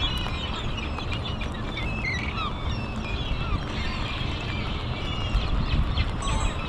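Outdoor rain ambience: a steady low rumble, with birds chirping in short, squeaky rising and falling calls scattered through it, thickest in the first half.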